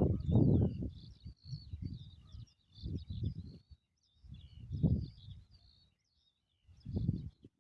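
Several songbirds chirping and trilling, thinning out near the end, over loud low rumbles that come and go in uneven gusts.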